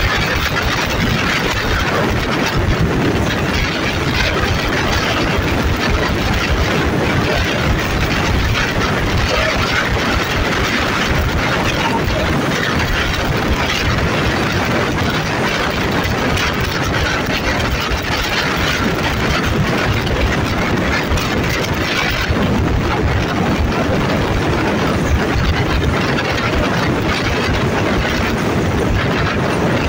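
Alsthom diesel-electric locomotive running under way, its engine heard clearly from the carriage coupled right behind it, over the steady rolling noise of the train on the rails.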